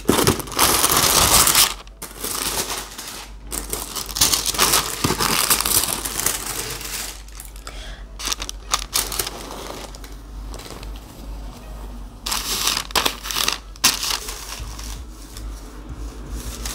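Tissue paper and clear plastic packaging rustling and crinkling in a shoe box as they are handled and folded back, in irregular bursts, the loudest just after the start.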